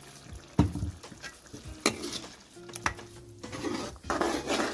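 Metal ladle stirring minced meat frying in oil in a wok: it knocks sharply against the pan three times, then scrapes and churns through the mince near the end, over a light sizzle.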